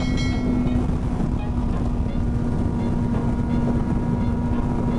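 Motorcycle engine running at a steady speed, with wind and road noise on the rider's microphone.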